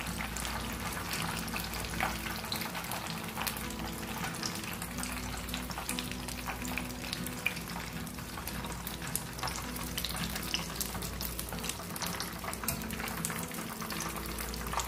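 Breaded fish pieces deep-frying in hot oil in a pan: a dense, steady crackle and sizzle, with occasional louder pops and clicks as the pieces are lifted out with a wire strainer and tongs.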